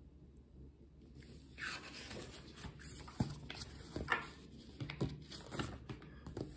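A paperback book being handled and opened, its pages turned: irregular paper rustling with soft taps and scrapes, starting about a second in.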